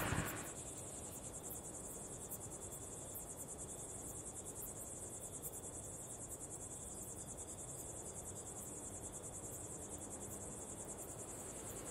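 Crickets chirping: a faint, steady, rapidly pulsing high trill.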